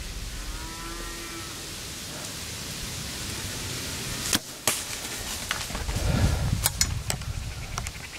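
A bow shot at a whitetail doe: two sharp snaps close together about halfway through, the release and the arrow striking. A couple of seconds later comes a stretch of rustling in dry leaves as the deer runs off.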